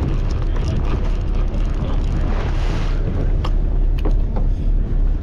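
Steady low rumble of the charter boat's engine, with a few sharp clicks from fishing tackle being handled at the reel about three and a half and four seconds in.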